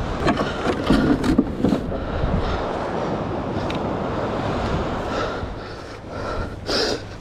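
Wind rumbling on a body-worn camera's microphone. Short knocks and rustles of clothing and gear come in a cluster in the first two seconds and once more near the end.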